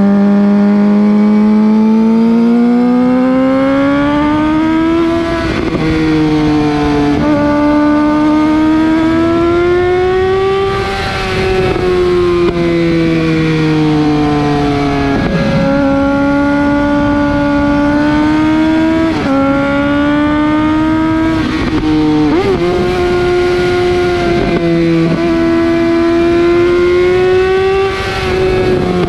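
Close-up exhaust note of a Suzuki GSX-R 750 K7's inline-four through a Yoshimura R55 slip-on muffler as the bike is ridden. The pitch climbs and falls as the rider accelerates and eases off, with several sudden jumps in pitch at the gear changes.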